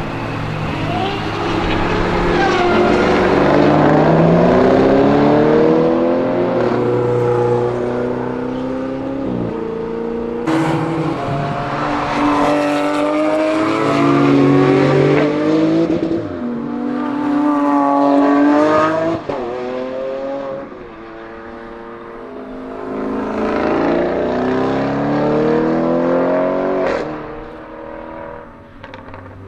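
High-performance car engines accelerating hard as cars pass, each pitch climb ending in a sudden drop at an upshift, about seven climbs in all.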